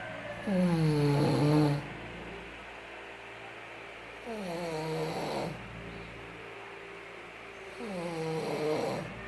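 Snoring: three snores about four seconds apart, each a rough pitched drone that falls in pitch, with a breathy hiss on top.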